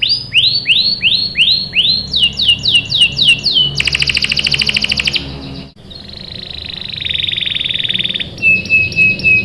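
Domestic canary singing: a run of repeated sweeping notes, about three to four a second, that speeds into a fast rolling trill. After a brief break just before the middle comes a buzzy trill, then a few short clear whistles near the end.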